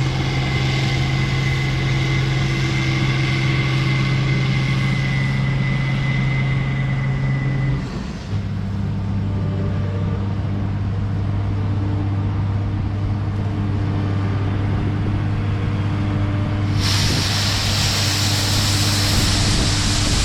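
A heavy farm vehicle's engine running steadily with a faint high whine. About eight seconds in the whine stops and the engine settles to a lower note. Near the end a loud rushing hiss comes in suddenly over it.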